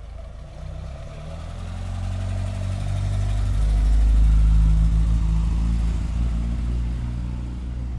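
A Mk1 Ford Escort's four-cylinder engine running as the car drives past, growing louder as it comes close about four seconds in, then fading as it moves away.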